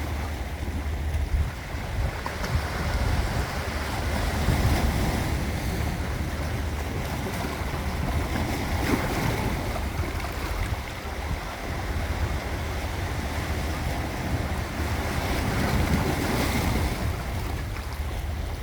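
Sea waves breaking and washing over the shore, swelling and easing every few seconds, with wind rumbling on the microphone.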